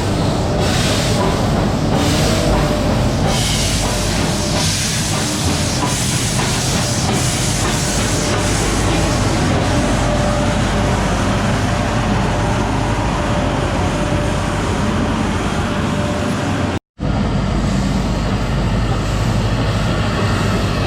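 Nilgiri Mountain Railway train moving along the track: a loud, steady rumble of the wheels and coaches with faint regular knocks, dropping out for an instant about 17 seconds in.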